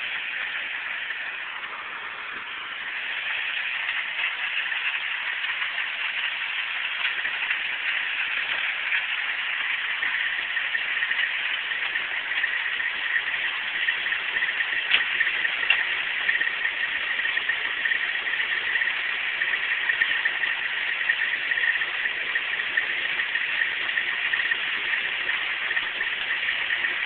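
Steady running drone of the heavy recovery equipment pulling an overturned semi-truck back onto its wheels, with a steady whine on top; it picks up slightly about three seconds in.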